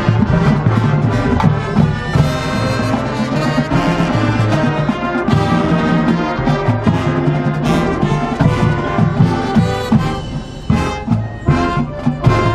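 High school marching band playing a loud brass passage, many notes held together. About ten seconds in the sound thins to a few sharp accented hits before the full band comes back.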